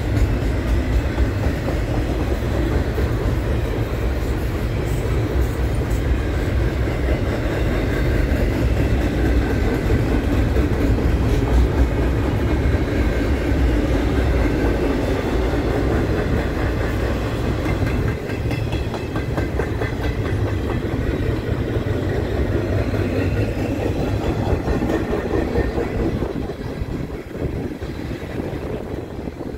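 Freight train of double-stack container well cars rolling past: a steady rumble with a rhythmic clatter of steel wheels on the rails, getting quieter over the last few seconds.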